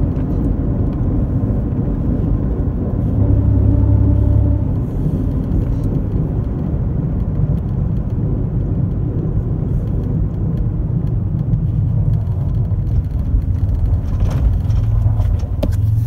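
Very loud exhaust of a third-generation Toyota 4Runner running with headers, a straight pipe and no muffler, heard from inside the cabin while driving: a steady low rumble that gets louder about three seconds in for a second or so, and again near the end. The exhaust is broken.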